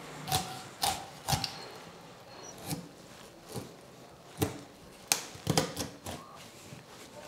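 Chef's knife cutting through a raw chicken's bones on a plastic cutting board: a string of irregular sharp cracks and knocks, with soft rubbing of the blade and meat between them.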